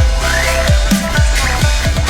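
Electronic dubstep music with a heavy beat of deep kick drums and wobbling bass.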